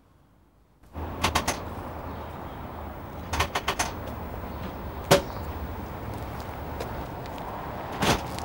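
Clicks and knocks from a payphone being handled in a glass phone booth, over a steady low hum. A cluster of clicks comes about a second in and another a couple of seconds later, the loudest single knock falls in the middle, and a quick double comes near the end.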